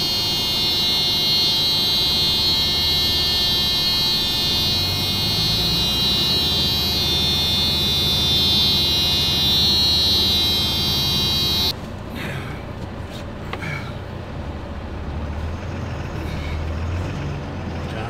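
A vehicle engine runs steadily under a steady high-pitched buzz. The buzz cuts off suddenly about twelve seconds in, leaving the quieter engine running.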